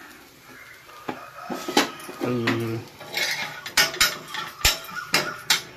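Kitchen utensils clinking and knocking against cookware: a run of sharp metallic clicks, coming thickest in the second half.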